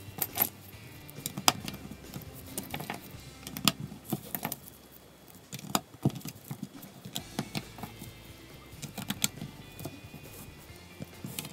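Plastic Lego bricks clicking and clattering as they are picked from a loose pile and pressed onto a baseplate: irregular sharp clicks, several a second at times, with pauses between.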